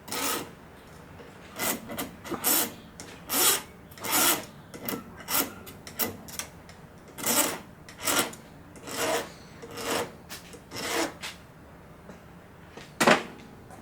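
Fine hand file rasping across the end of a piston ring in short, uneven strokes, with a pause and then one louder stroke near the end: the ring's end gap is being filed open to give it clearance in the bore.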